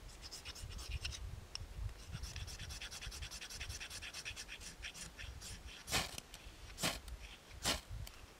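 Fire steel (ferrocerium rod) scraped to throw sparks onto tinder to light a fire: a run of quick light scrapes, then three hard strikes about a second apart near the end.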